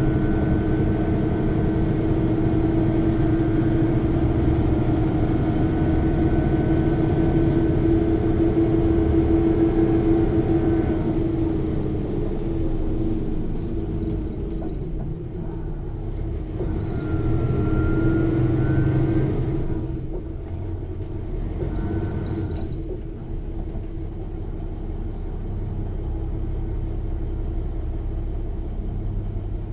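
Mercedes-Benz O 405 N city bus heard from inside the cabin, its diesel engine pulling steadily with a thin whine from the rear axle's differential. About eleven seconds in it eases off and goes quieter, pulls again briefly with the whine rising and falling, then runs on more quietly.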